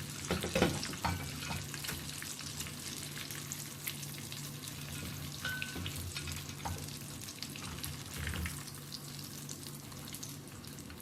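Breaded fish fillets frying in hot oil: a steady sizzle with crackles, with a few knocks and scrapes of a utensil in the pan.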